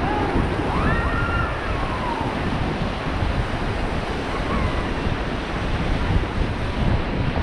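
Rushing river water, a steady loud rush, with wind buffeting the microphone. Faint voices call out in the first couple of seconds.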